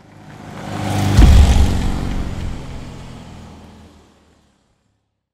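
A car drive-by sound effect: the engine swells, peaks with a deep hit about a second in as its pitch drops, then fades away over the next three seconds.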